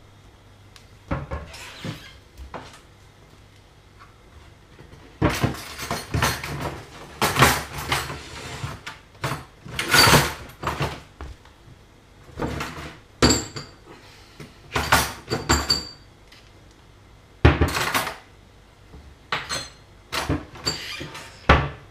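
Metal pots, pans and lids clattering and knocking as they are rummaged through in a kitchen cupboard, in repeated bursts with pauses between them. A few brief metallic rings come from the lids and pots striking each other.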